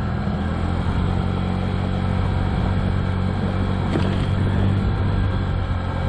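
A 2007 Honda Ruckus's 49cc single-cylinder four-stroke scooter engine running steadily while riding, with a brief click about four seconds in.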